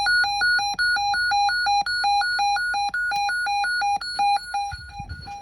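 Electronic alert beeps repeating steadily, about three short tones a second, the attention signal of an emergency alert broadcast. The beeps turn quieter about four and a half seconds in as a low rumble comes up beneath them.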